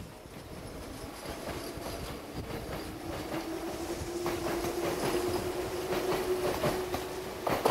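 Meitetsu red electric train passing close by, its wheels clicking over the rail joints in a steady clickety-clack. A low hum rises slightly in pitch from about three seconds in, and a sharp knock near the end is the loudest sound.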